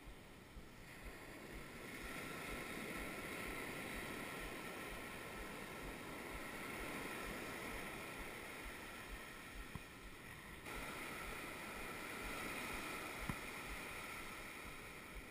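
Steady wash of ocean surf on a sand beach, mixed with wind buffeting the microphone.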